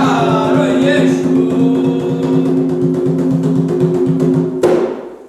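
Ritual chant (ponto) sung by a group over fast hand-drum playing, with voices holding a long final note. About four and a half seconds in, a last loud drum hit closes the ponto and the music stops.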